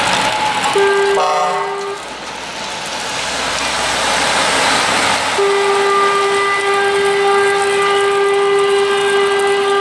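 Truck horns sounding over the noise of passing lorries: a short horn blast about a second in, overlapped briefly by a second, higher horn, then one long steady blast held for over four seconds from about halfway through.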